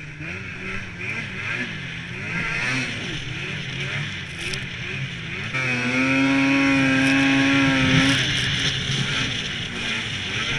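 Snowmobile engine running hard along a trail, its revs rising and falling with the throttle. About halfway in it holds a loud steady high note for two or three seconds, then eases off.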